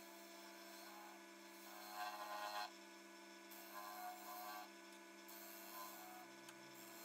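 Faint steady hum of a Record Power Coronet Herald wood lathe running, with a few soft scraping bursts about two, four and six seconds in as the turning tool cuts the apple-wood tenon down to diameter.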